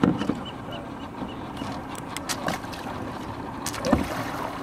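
Shallow water splashing and sloshing as a person gets out of a kayak at the water's edge, with a few sharp knocks, the loudest near the end.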